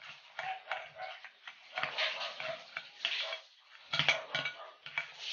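A spoon stirring thick flour-and-water batter in a glass bowl, scraping and clicking against the glass in irregular strokes as the batter thickens.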